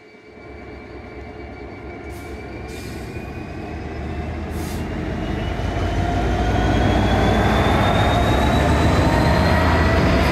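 EWS Class 66 diesel locomotive (EMD two-stroke engine) approaching and running past close by. Its engine and wheel rumble grows louder over the first six seconds and then holds steady and loud. A thin whine rises slowly in pitch.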